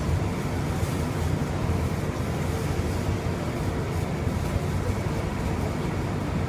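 Bombardier Innovia APM 100 people mover running along its guideway, heard from inside the car: a steady low rumble from the rubber tyres on the concrete track, with a faint steady hum above it.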